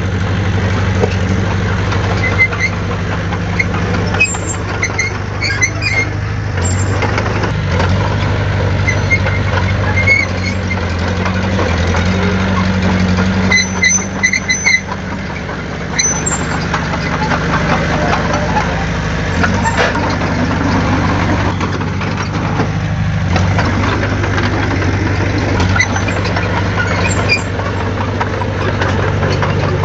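Heavy diesel engine of earthmoving machinery running steadily at a low, even pitch, with short high squeaks now and then.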